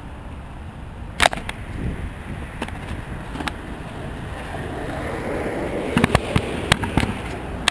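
Skateboard wheels rolling over asphalt, with sharp clacks of the board hitting the ground: one loud clack about a second in, a few lighter ones after it, and a quick run of clacks near the end.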